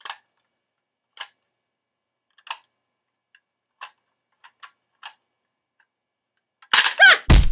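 Crocodile Dentist toy's plastic teeth pressed down one at a time, each giving a single sharp click, about seven clicks spaced irregularly. Near the end comes a loud clatter with a brief high-pitched cry and a heavy thump.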